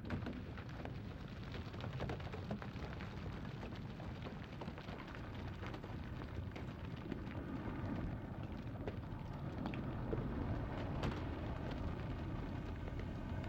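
Deep-sea hydrothermal vent ambience: a steady low rumble with faint crackles scattered through it and one sharper click about eleven seconds in.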